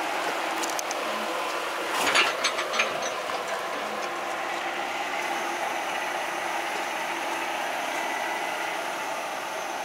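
Toyota Tacoma engine running steadily at low speed while crawling a rocky 4x4 trail. A quick run of sharp knocks and clicks comes about two seconds in.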